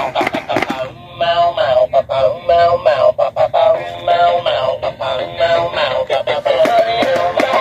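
Gemmy Bongo the Bouncing Baboon animated plush toy playing its song through its small built-in speaker: electronic-sounding singing over music with a steady beat.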